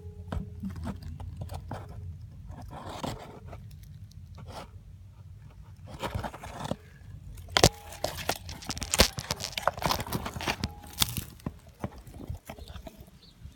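Camera handling noise as it scrapes and knocks against the burrow's dirt and roots, with a low rumble at first and a run of sharp knocks and crunches in the second half.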